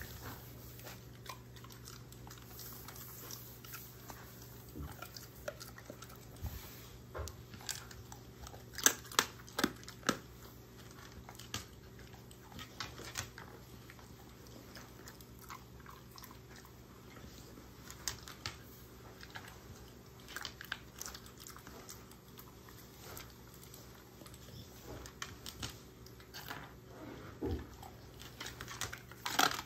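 A German shorthaired pointer chewing and crunching dog treats in irregular bites, the loudest crunches coming in a cluster about nine seconds in and again near the end, over a faint steady low hum.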